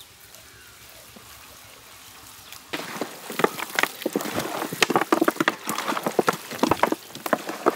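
Hands mixing a large heap of raw mutton pieces coated in ground spice paste, giving irregular wet squelching and slapping that starts about three seconds in and goes on densely.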